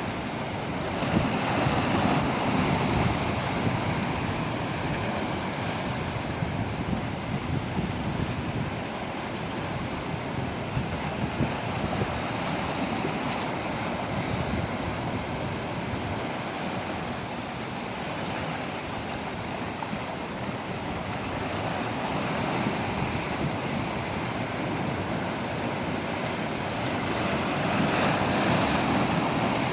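Sea waves washing ashore with wind, a steady rushing that swells up shortly after the start and again near the end.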